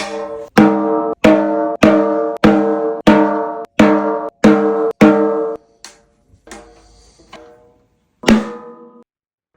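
Doc Sweeney 14" x 6" Focus Series snare drum with a clear batter head in a fairly high, airy medium tuning, struck about nine times at an even pace of under two hits a second, each hit ringing with a clear pitched tone. A few soft strokes follow, then one more firm hit near the end.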